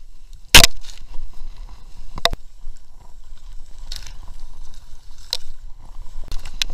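Skiing down powder snow, heard from a body-mounted camera: a steady low rumble of movement against the microphone, broken by sharp knocks roughly every second and a half, the first, about half a second in, the loudest.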